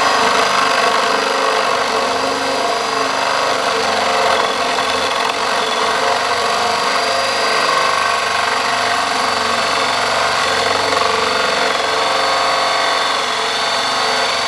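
Cordless drill running without a break, a hole saw cutting through the wooden wall of a speaker cabinet: the teeth scrape steadily in the wood under a steady high motor whine.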